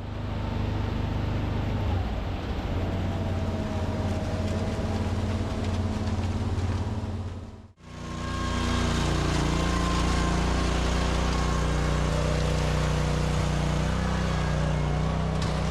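An engine running steadily, a low hum. It drops out for a moment about eight seconds in and comes back.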